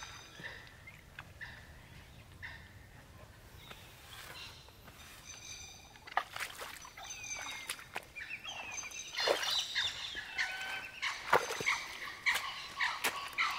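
Wild birds calling, many short overlapping calls, growing busier and louder in the second half. A few heavy steps of boots in deep, sticky swamp mud come in near the end.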